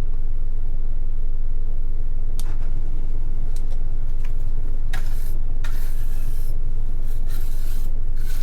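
Hands handling parts on a workbench, with a few short rubbing and scraping sounds, several close together in the second half, over a loud steady low electrical hum.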